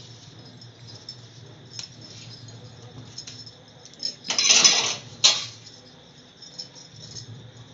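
Betel leaves being handled and warmed on a pan on a lit stove: light ticks and rustles over a low steady hum, with two louder rasping scrapes about four and five seconds in.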